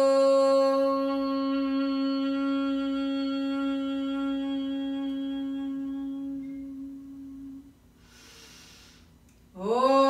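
A woman chanting Om on one steady held pitch, humming as the sound fades out about three-quarters of the way through. A quiet breath in follows, and the next Om begins near the end, sliding briefly up into the same pitch.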